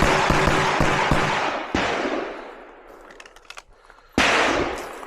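Handgun shots: a quick string of shots in the first second and a half, then single shots about 1.75 s and 4.2 s in, each with a long echo trailing off.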